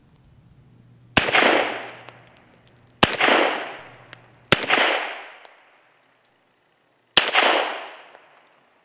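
Four shots from a Beretta 96FS pistol in .40 S&W, fired at uneven spacing, the first about a second in and the last about seven seconds in. Each shot rings out and fades away over about a second.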